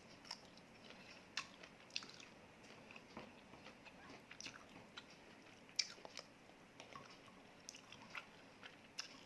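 Faint, close chewing and wet mouth sounds of someone eating a rice meal, with irregular small clicks and smacks.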